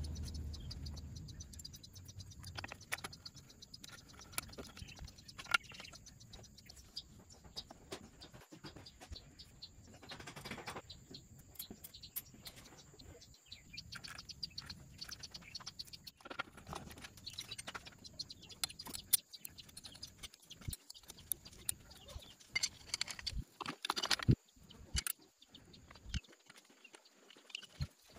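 Scattered light metallic clicks and clinks of hand tools and small steel parts being fitted to a Lambretta scooter engine's primary-drive side, over faint bird chirps.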